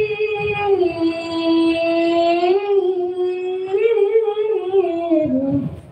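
A woman singing long, held notes that slide slowly in pitch, into a microphone, in the melismatic style of an Islamic devotional chant. The phrase breaks off just before the end.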